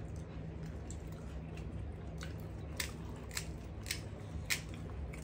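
Crisp fried gol gappa (pani puri) shells being cracked open with the thumbs, a run of sharp crackling snaps about two a second starting about two seconds in, over a steady low hum.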